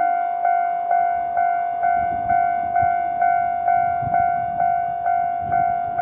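Japanese railway level-crossing warning bell ringing at its normal volume setting: an electronic dinging tone repeated about twice a second, each strike fading before the next, to warn that a train is coming. A low rumble runs underneath from about two seconds in.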